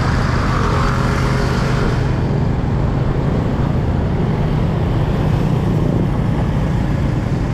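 Steady road traffic noise: motor vehicles running, with a continuous low engine hum.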